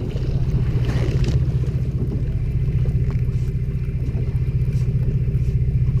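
Charter boat's engine running steadily, a deep, even, fast-pulsing drone.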